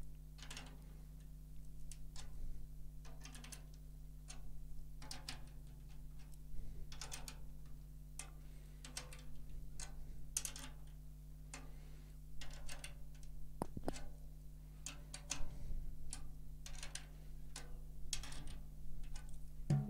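Drum key turning the tension rods of a snare drum one after another, a string of faint, irregular clicks as the batter head is tightened to raise its pitch.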